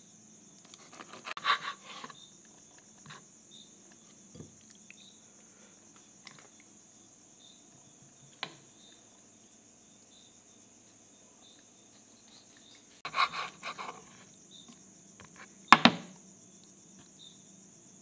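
Kitchen knife cutting raw liver on a plastic cutting board: clusters of short knocks and scrapes about a second in and again near the end, the loudest near the end, with one sharp click in the middle. Underneath, a steady high insect trill like crickets runs throughout.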